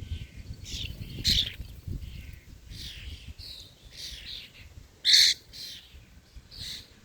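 Birds chirping: short, separate high calls, one after another, with one louder call about five seconds in.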